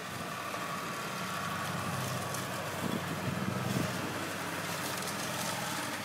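Pickup plow truck's engine running as it drives along a snowy street: a low, steady engine hum that swells a little in the middle, over a steady background hiss.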